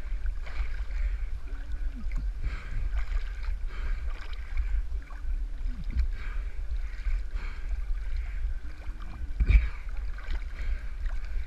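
Pond water sloshing and splashing around a camera held at the surface by a swimmer, with a low rumble of water buffeting the microphone and a sharper splash about nine and a half seconds in. Faint distant voices call out a few times.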